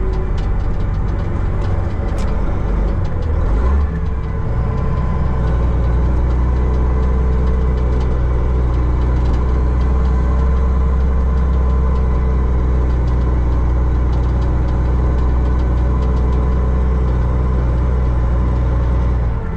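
Dump truck's diesel engine heard from inside the cab, rolling slowly at low revs; the engine note shifts about four seconds in, then runs steady and low.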